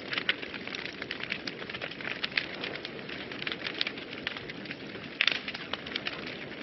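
Wood fire burning in a fireplace, crackling with frequent irregular snaps and pops over a steady low hiss of the flames, with a louder cluster of pops about five seconds in.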